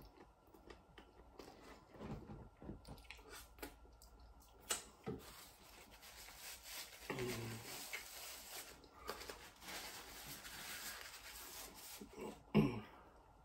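Close-up eating sounds: chewing and mouth noises on a crispy chicken burger, with a paper napkin rubbing across the mouth and beard through the middle and one short loud noise near the end.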